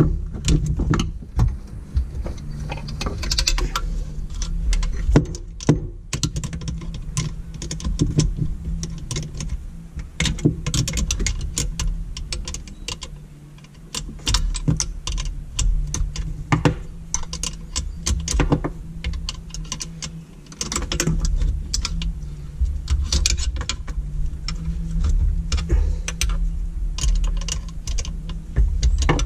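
Irregular small metallic clicks and taps of a hand tool and fittings as the throttle and oil-injection cables are worked loose on a Sea-Doo RX DI engine, over a steady low hum.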